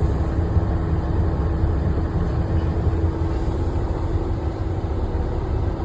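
Heavy diesel engine running steadily: a constant low rumble with a steady hum above it.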